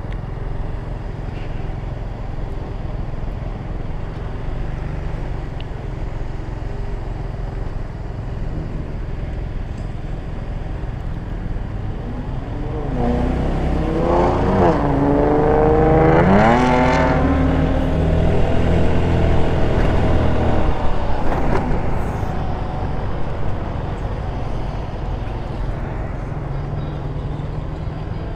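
A 150cc GY6 scooter engine runs under steady riding noise. Roughly halfway through, a louder engine sound swells for several seconds, its pitch rising and falling a few times, then settles back to the steady drone.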